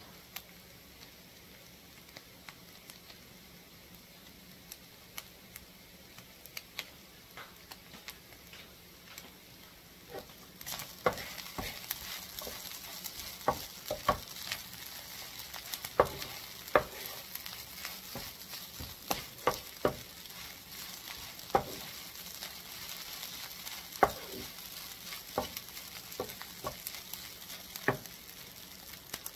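Turkey sausage mixture sizzling in a skillet, coming in about a third of the way through, while a spoon stirs it and knocks sharply against the pan again and again. Before that there are only a few faint clicks.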